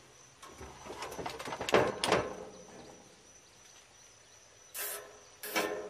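Nylon cable ties being pulled tight around the condenser fan motor's wires: short ratcheting zips, a quick cluster about two seconds in and two more near the end.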